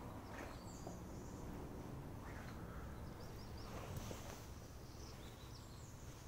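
Faint bird chirps, a few short high calls scattered through, over a low steady background hum.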